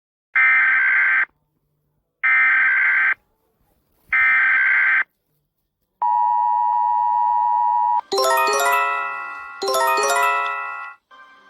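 Emergency alert broadcast tones. First come three short, harsh, buzzing data bursts, each just under a second long, in the style of an EAS header. Then a steady two-tone attention signal sounds for about two seconds. From about eight seconds in, a loud electronic chime plays a falling run of bell-like notes, repeated about every one and a half seconds.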